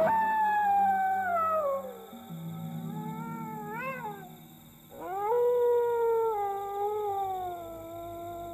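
A dog howling: a long howl falling in pitch at the start, a shorter rising-and-falling howl around three to four seconds in, and another long falling howl from about five seconds in, over a low steady drone.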